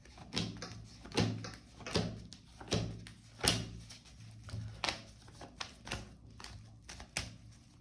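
Tarot cards handled and laid out on a table: a string of short taps and slaps, the clearest about one a second in the first half and lighter, quicker ones later, over a faint low hum.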